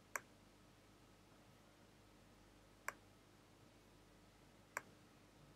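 Near silence broken by a few faint, single clicks, spaced a second or two apart, from a computer pointer being clicked.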